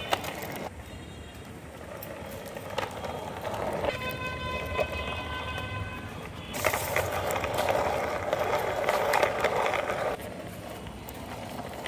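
Hard plastic toy-bus wheels rolling and scraping along a rough concrete wall top, loudest from about six and a half to ten seconds in. A steady pitched tone with several evenly spaced notes, like a horn, sounds from about four to six and a half seconds.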